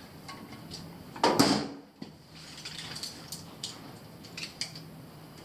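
Small clicks and handling noises of hands and tools at work on low-voltage wiring while a jumper wire is run, with one louder scraping sound about a second and a half in.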